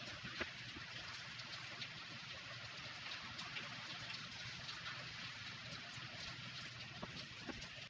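Steady rain falling, an even hiss with many small drop ticks.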